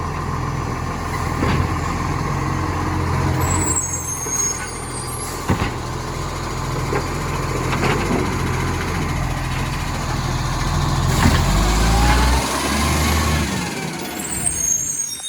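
Rubbish truck's diesel engine running with a leaking exhaust, with a few sharp ticks and brief high squeals about four seconds in and near the end. The sound fades near the end.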